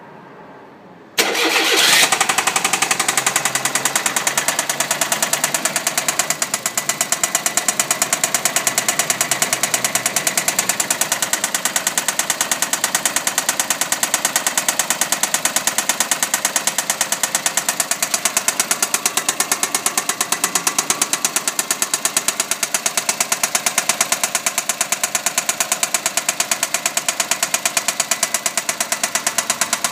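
Car engine starting about a second in, then idling with a rapid, even knocking that settles slightly quieter about six seconds in. It is the knock of an engine wrecked by 16,000 km without an oil change, which the owner files under engine seizure.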